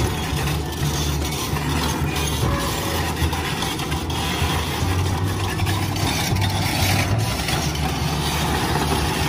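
Diesel engine of a SANY crawler crane running steadily, under a dense, even rush of noise.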